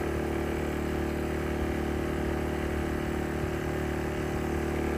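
Sportsman 1000-watt inverter generator running steadily at an even pitch, warmed up, at full speed with economy mode off and no load yet drawn.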